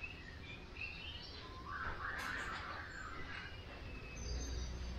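Baby monkey giving short high-pitched squeaks and chirps, with a louder, longer squeal about two seconds in.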